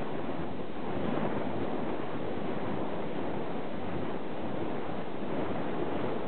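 Steady rushing noise of wind on the microphone.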